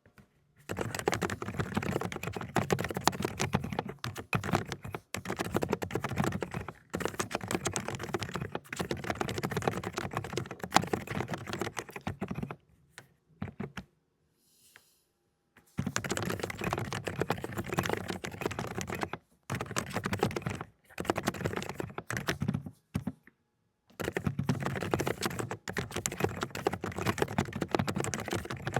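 Fast typing on an AULA ('독거미') mechanical keyboard with low-noise 'cotton candy' switches: dense runs of soft keystrokes in bursts. There is a pause of about three seconds near the middle.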